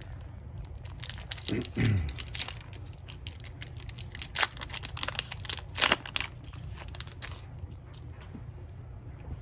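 A Donruss baseball card pack's wrapper is torn open by hand. It gives a run of crinkles and short crackling rips, with two sharper rips in the middle.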